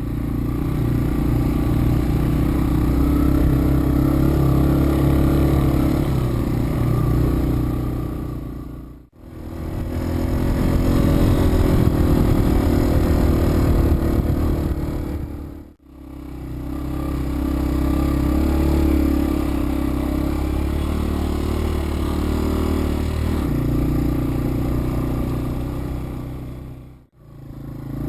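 Yamaha TW200's single-cylinder four-stroke engine running under way at a fairly steady pace, with some rattle and wind. The sound drops out briefly three times, about 9, 16 and 27 seconds in.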